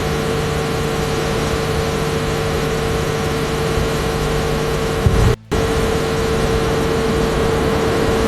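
Loud, steady engine or machine noise with a constant hum, which drops out briefly about five seconds in and cuts off suddenly at the end.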